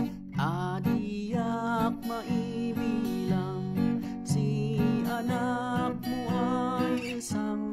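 A man singing while strumming chords on an acoustic guitar, recorded close on a condenser microphone.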